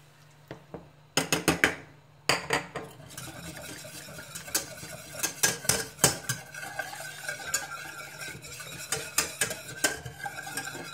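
Wire whisk stirring and clinking against a stainless steel saucepan as heavy cream is whisked into a butter, garlic and flour roux. A quick run of clinks comes about a second in, then after a short pause steady whisking with frequent clinks over a low sizzle from the hot pan.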